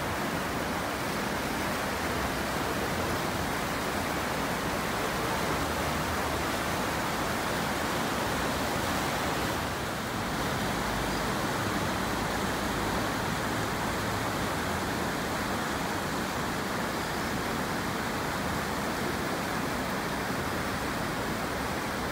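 River water rushing steadily over low weirs in a stone-walled channel, with white water churning at each step.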